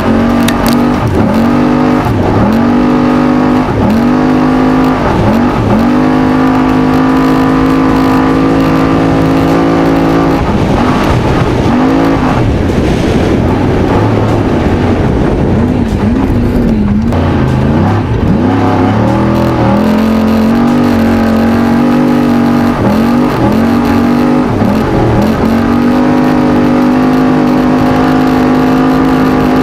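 Desert-racing trophy truck's engine running hard. Its pitch dips briefly and climbs back again and again, about once a second, as the throttle is lifted and reapplied, with long stretches held steady at high revs.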